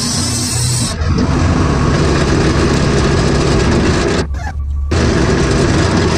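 Wood-Mizer LT40 Super Wide band sawmill running steadily, its engine humming under the noise of the band blade. The higher part of the sound drops away briefly about four seconds in, then returns.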